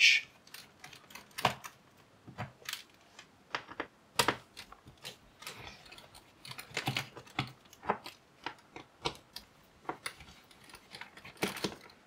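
Small screwdriver loosening the captive Phillips screws in a laptop's metal base cover: irregular light clicks and taps of the bit and screws against the case.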